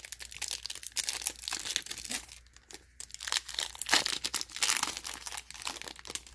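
Foil wrapper of a Topps Stadium Club baseball card pack crinkling and tearing as it is pulled open by hand, in irregular crackles with a short lull about two and a half seconds in.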